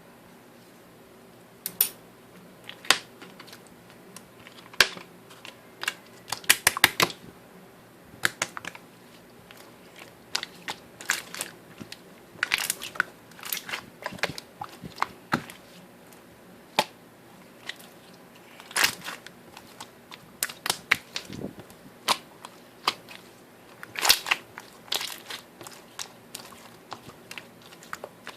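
Slime being squished and pressed by hand, giving irregular sharp pops and crackles, some single and some in quick clusters.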